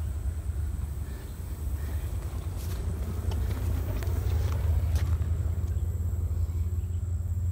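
Steady low rumble with a thin, steady high whine above it and a few faint clicks.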